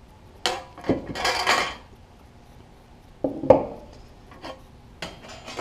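Sheet-metal toolbox parts clanking and rattling as they are handled and fitted together. There are sharp metallic clanks with a short ringing rattle about a second in, another clank a little past three seconds, and lighter knocks near the end.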